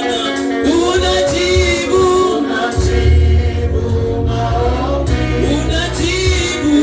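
Live gospel praise-and-worship music: voices singing a sustained melody over a band with a heavy bass line.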